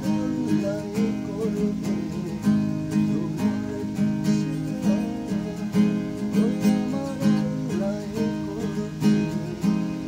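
Acoustic guitar with a capo on the neck, strummed in a steady rhythm, with a wavering melody line sounding above the chords.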